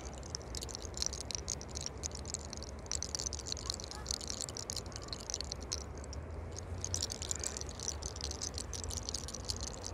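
Faint crackling and rustling of braided hair as a lock is rolled between the fingers and pulled upward (hair cracking), many tiny clicks in a hiss that comes and goes, over a steady low hum.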